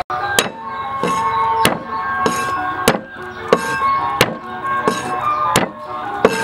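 A cleaver chopping garlic cloves on a wooden cutting board: about ten even, sharp strokes, roughly one every two-thirds of a second, over background music.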